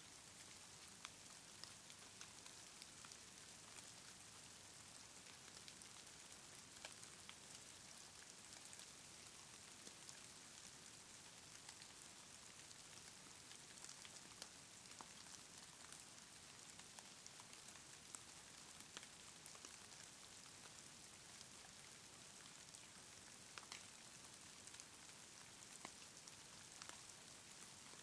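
Near silence: a faint steady hiss with scattered small ticks.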